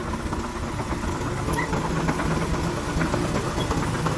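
Komatsu PC58-8 compact excavator's 4D88E-6 four-cylinder diesel engine running steadily.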